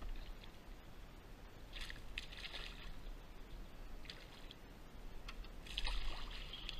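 A hooked bass splashing at the water's surface beside a kayak, in short bursts about two seconds in and again around four seconds, loudest near the end as it is scooped into a landing net.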